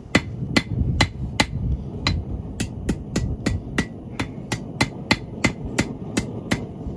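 Hand hammer striking a hot ring of 5/16-inch steel rod on an anvil to flatten it. Steady blows come about three a second, each with a short metallic ring.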